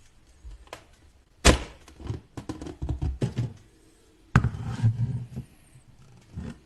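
Handling knocks and clatter: a sharp knock about a second and a half in, followed by a run of quicker rattling knocks, then another sharp knock with a short clatter about four seconds in, and one more knock near the end.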